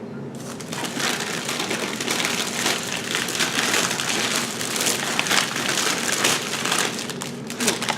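Plastic packaging crinkling and crackling continuously as it is handled and pulled open.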